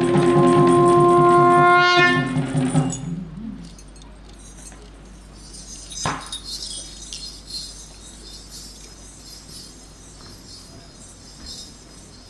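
A wind instrument holds a horn-like note over Kandyan drumming. Both stop about three seconds in, leaving a quiet hall with one sharp knock near the middle.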